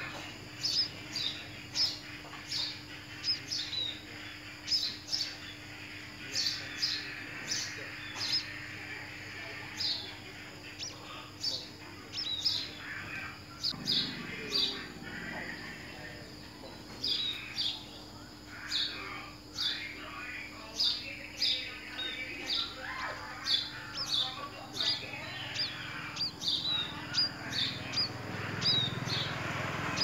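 A small bird chirping over and over: short, sharp, high chirps, about one or two a second, with a faint steady hum beneath.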